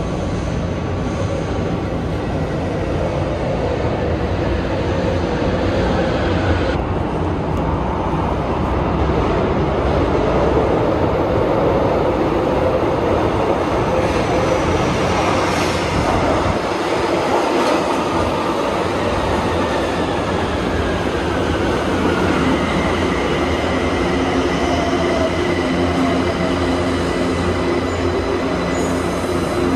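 São Paulo Metro subway train approaching through the tunnel and running into the station platform, a loud steady rumble throughout. From about halfway through, a whine falls in pitch as the train slows, and a steady high tone joins near the end.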